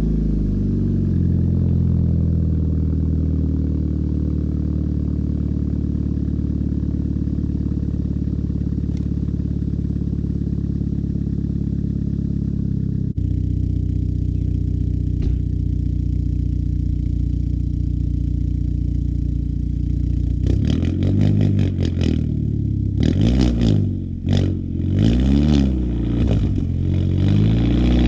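Straight-piped exhaust of a 2-litre turbo Volkswagen Passat, idling steadily for about twenty seconds, then revved several times in quick blips near the end.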